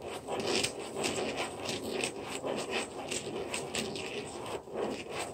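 Ballpoint pen scratching on paper as a small plastic gear is turned round inside the toothed ring of a plastic spirograph ruler: a dense, irregular run of short scratches and rubbing clicks.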